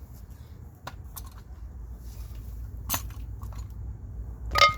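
Metal tools or parts being handled near a car's engine mount: a few light clicks and knocks, then a louder metallic clink with a brief ring near the end, over a low steady rumble.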